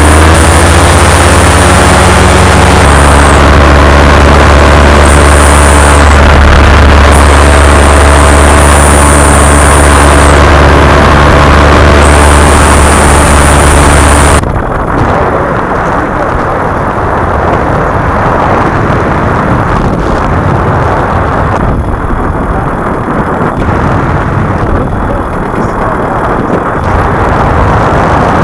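Paramotor engine and propeller running steadily at cruising power in flight, with a high whine above the drone. About halfway through the engine sound cuts off abruptly, leaving heavy wind rushing and buffeting on the microphone.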